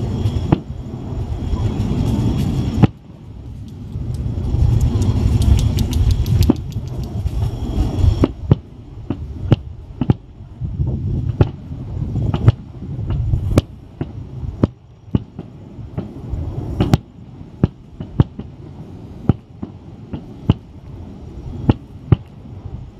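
Fireworks bursting. A dense, rumbling barrage for the first eight seconds or so, easing briefly around three seconds in, then a run of separate sharp bangs, about one or two a second.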